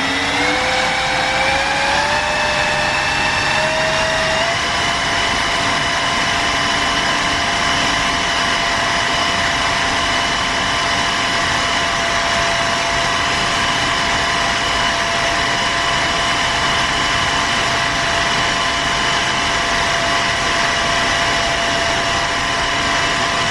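Power drill spinning the DC motor that serves as the turbine's generator, loaded by a heater. Its motor whine rises in pitch over the first four seconds or so, then holds steady.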